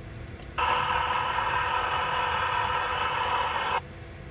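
Scanner radio transmission: a burst of static-filled radio audio opens suddenly about half a second in and cuts off abruptly near the end, as the squelch opens and closes. A steady low rumble from the passing freight train and idling traffic runs underneath.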